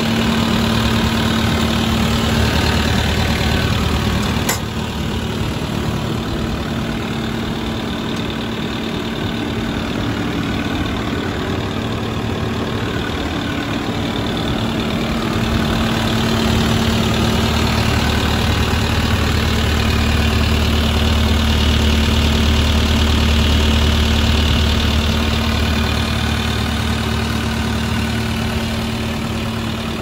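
Kubota diesel engine of a Sunward tracked skid steer idling steadily, heard close up with the engine cover open. A single sharp click comes about four and a half seconds in, and the low hum grows a little louder past the middle.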